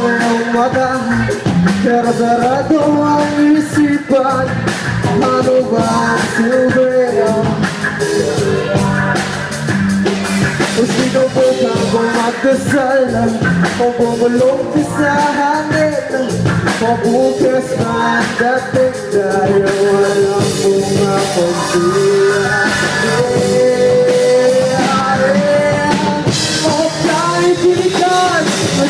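Rock band playing live: a man singing over electric guitars and a drum kit.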